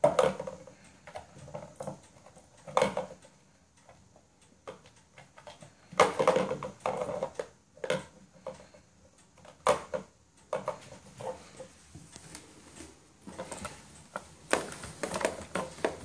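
Kittens batting balls around a plastic circular track cat toy: irregular rattling and rolling of the balls in the track, with a few sharper knocks.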